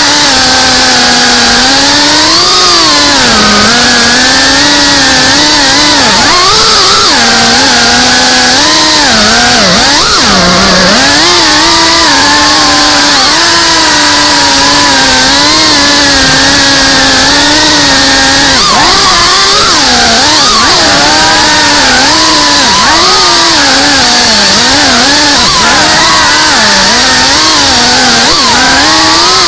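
FPV quadcopter's brushless motors and propellers whining, the pitch rising and falling constantly with the throttle, dipping lowest about ten seconds in, over a steady hiss, heard from the camera on the drone itself.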